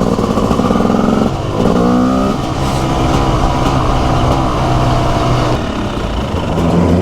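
Single-cylinder two-stroke engine of a TM SMR 300 supermoto under way. The pitch drops about a second in, climbs again as the revs build, then holds fairly steady, with another change in pitch near the end.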